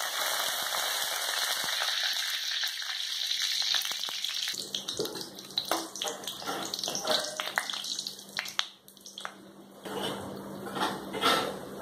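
Garlic and curry leaves sizzling in hot oil in a kadai, a steady hiss for the first few seconds. Then a steel ladle stirs them, scraping and clicking against the pan.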